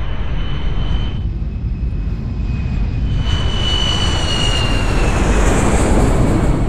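Jet airliner's twin engines passing low overhead: a loud steady rumble that swells as the plane comes closer, with a high whine that slides slightly down in pitch about halfway through.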